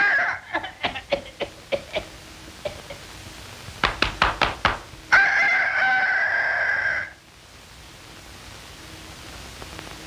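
Sound-effect knocking, about four sharp knocks a second that die away over the first two seconds, then a quicker run of about six knocks. A steady, bird-like squawking call follows for about two seconds and cuts off suddenly, leaving only the hiss of the old soundtrack.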